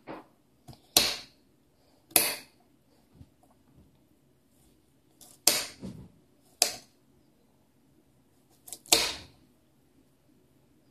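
Kitchen knife chopping carrot pieces directly on a stone countertop: about five sharp knocks of the blade striking the counter, spaced unevenly a second or more apart, with a few fainter taps between.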